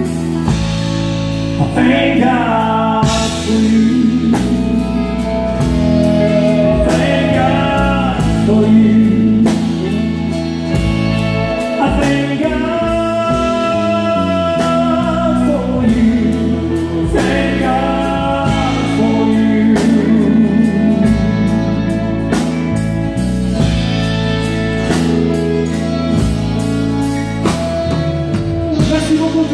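Live country band playing a slow love song: a man singing in French over his acoustic guitar, with electric guitars and a drum kit keeping a steady beat.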